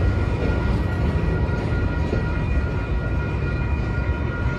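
Freight train cars rolling past: a steady low rumble of steel wheels on rail, with several steady high ringing tones held above it.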